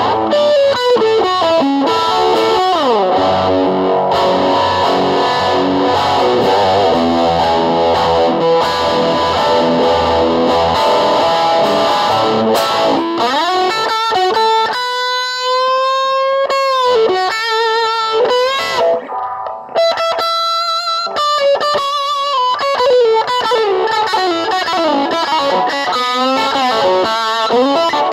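Guitar music, electric with a distorted tone: a dense passage of notes, then, about halfway through, long held notes that bend in pitch with wide vibrato.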